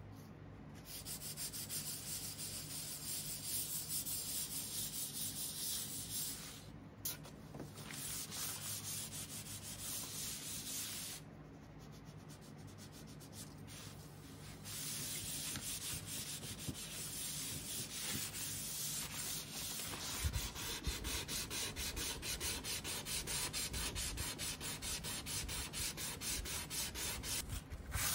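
Hand-sanding wood: abrasive paper, and later a sanding sponge, rubbed back and forth over a wooden cabinet panel in quick, even strokes, with two short pauses.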